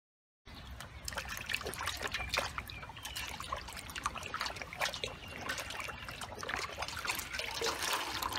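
Hands washing pig ears and stomach in a metal bowl of water: splashing and trickling water with many small splashes. The sound starts about half a second in.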